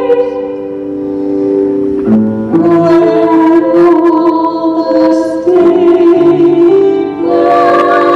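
A small vocal group singing in harmony with piano accompaniment, holding long chords that change every couple of seconds.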